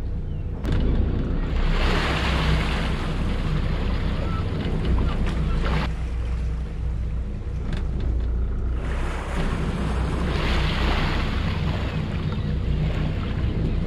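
Twin Volvo Penta diesel engines of a Princess 45 motor yacht running at low docking speed with a steady low rumble, under long stretches of rushing hiss that come and go.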